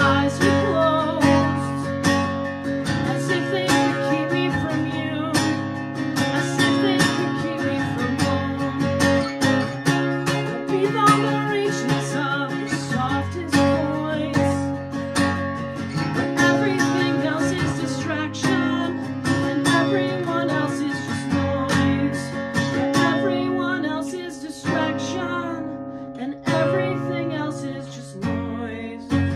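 Acoustic guitar strummed in a steady rhythm, playing the chords of a song, growing softer and thinner near the end.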